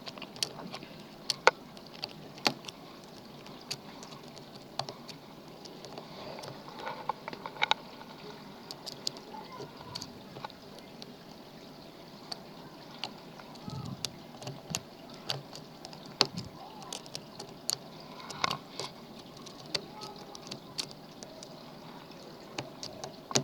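Irregular small metallic clicks and scrapes of a lock pick and tension wrench working the pins of a lock.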